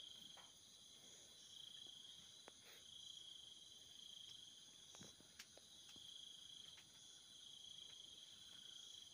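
Near silence with faint, steady, high-pitched insect trilling in the background, and a few faint clicks.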